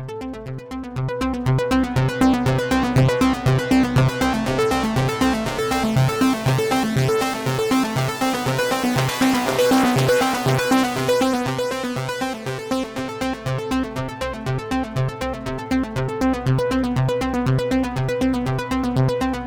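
Electronic synthesizer music: a fast, even pulsing pattern in the low end under held chords, growing louder about two seconds in.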